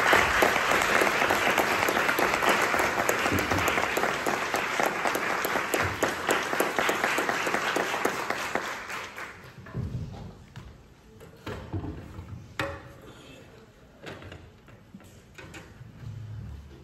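Audience applauding, dying away about nine seconds in. After it, a few scattered knocks and thumps as music stands and chairs are moved on a wooden stage.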